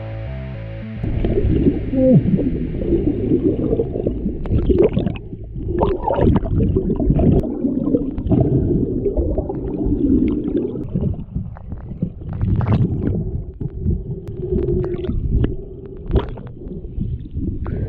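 Underwater sound of a flowing river picked up by a submerged action camera: a muffled rushing and gurgling of the current with scattered clicks and knocks, like stones and debris shifting on the riverbed.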